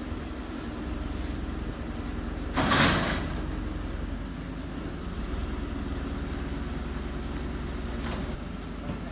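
Engine of a truck-mounted crane running steadily as it hoists a large root-balled tree, with a brief louder rasping noise about three seconds in.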